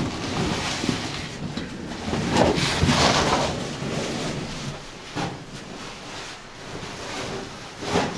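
Rustling and scraping of a caver's suit and gear against rock while squeezing through a narrow cave passage, swelling and fading, with a few sharp knocks.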